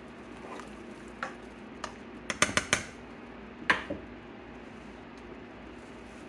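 A cooking spoon knocking and scraping against a granite-coated pan as a liquid stew is stirred. There are a few scattered clicks, then a quick run of about five taps two and a half seconds in, and one louder knock about a second later.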